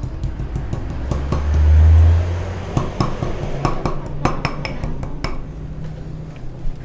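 Pestle knocking and grinding in a mortar, crushing flowers into colour: irregular sharp clinks and knocks, several a second, with a low rumble in the first couple of seconds.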